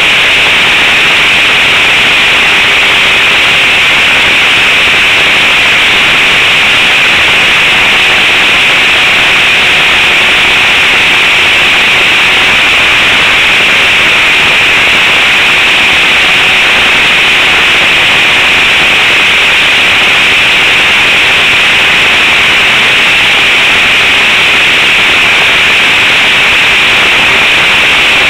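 Propeller-driven RC trainer plane's engine running steadily in flight, heard up close from its nose-mounted camera: a loud, harsh, unbroken noise mixed with wind rush, with a faint steady tone underneath.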